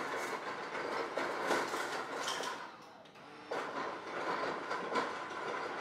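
Refrigerator door dispenser running into a glass. It stops for a moment about three seconds in and starts again suddenly.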